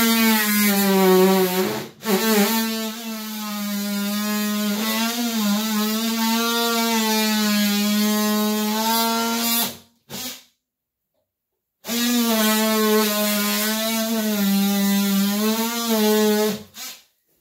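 Handheld power tool cutting into wooden door-frame trim, buzzing at a steady pitch that sags and wavers as it bites. It runs for about ten seconds, stops for a couple of seconds, then runs again for about five.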